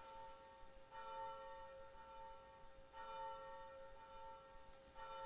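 Faint bell ringing at the elevation of the chalice in the consecration at Mass: clear tones, struck about every two seconds, each stroke ringing on into the next.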